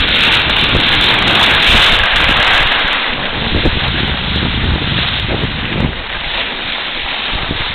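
Wind rushing over the microphone with the hiss and scrape of sliding over packed, tracked snow while moving downhill, loudest in the first three seconds.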